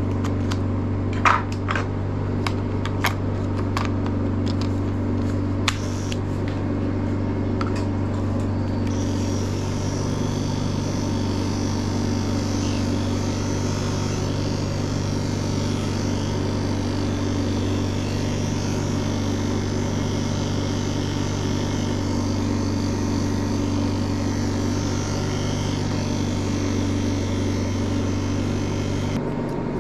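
Wahl KM-series electric dog clipper running with a steady buzzing hum while clipping a small dog's coat. There are a few sharp clicks in the first several seconds, and the motor cuts off near the end.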